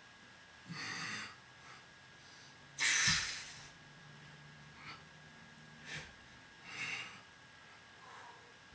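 A man breathing hard with effort while holding his body up on his arms: a handful of short, forceful exhales, the loudest about three seconds in.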